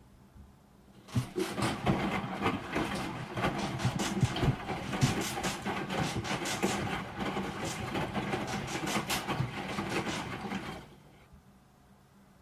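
Broken washing machine rattling and knocking irregularly. It starts about a second in, goes on for about ten seconds, then stops fairly suddenly, leaving a faint low hum.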